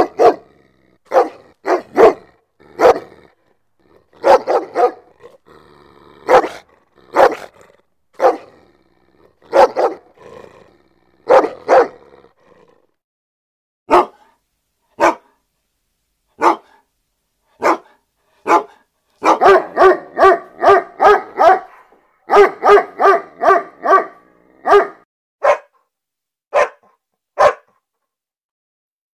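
A dog barking angrily in single sharp barks about a second apart. About two-thirds of the way in it breaks into a fast run of about five barks a second, then slows to single barks again.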